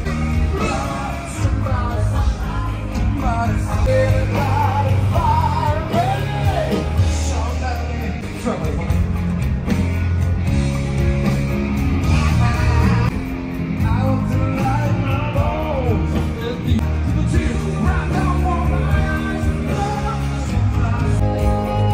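Rock band playing live through a stadium PA: electric guitar, bass and drums, with some singing.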